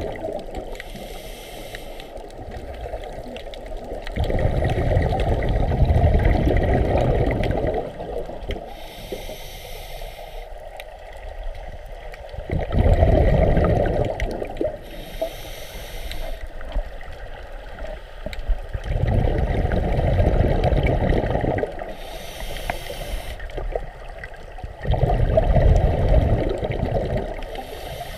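A scuba diver breathing through a regulator underwater, four breaths about every six to seven seconds. Each breath is a short hiss of inhalation through the demand valve, followed a few seconds later by a longer, louder low rush of exhaled bubbles.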